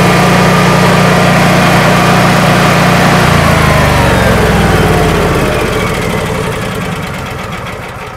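Honeywell 17 kW standby generator's 992 cc engine running steadily, then shutting down at the end of a test run. From about three seconds in its pitch falls as it winds down, and it fades away near the end.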